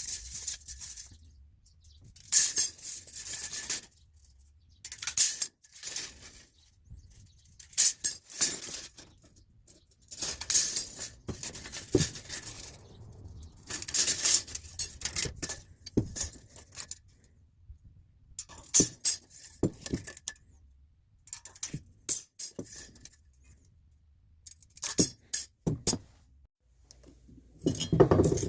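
Wiss snips cutting a steel tape-measure blade into sections: short crisp snips with metallic clicks, repeated every second or two with brief pauses between.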